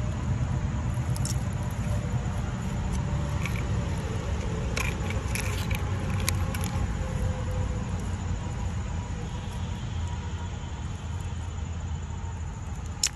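A steady low rumble, with a scatter of light clicks and clinks between about one and seven seconds in and one more sharp click near the end, from gloved hands handling metal costume jewellery and shards of a broken terracotta pot among dry twigs.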